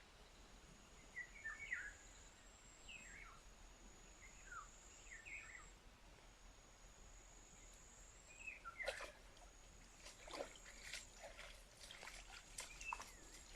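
Faint birdsong: short chirping phrases every second or two, over a thin, high, on-and-off insect-like buzz. In the second half, scattered soft clicks and rustles join in.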